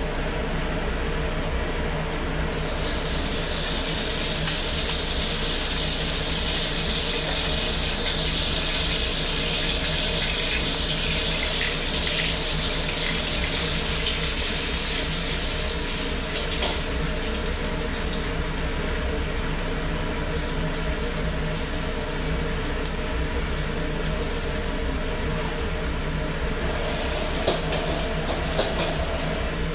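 Stir-frying in a wok over a gas burner with the kitchen exhaust hood running: a steady roar under the sizzle of egg and noodles frying, strongest for the first ten seconds or so, and a metal ladle scraping and clinking against the wok now and then.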